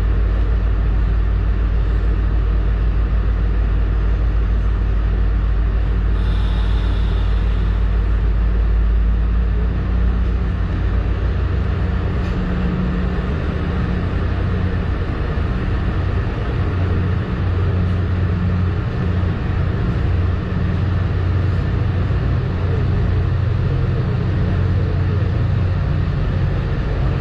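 MBTA Commuter Rail train running, heard inside the passenger coach as a steady rumble. The deepest part of the rumble eases about ten seconds in.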